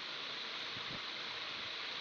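Steady hiss, with faint soft squishes of hands squeezing and rolling raw minced beef mixture into a meatball.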